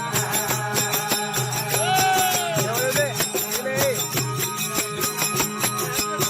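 Instrumental passage of a Rajasthani desi veena bhajan: the veena's steady drone under jingling hand percussion keeping an even, quick beat, with a short sliding melodic phrase about two to four seconds in.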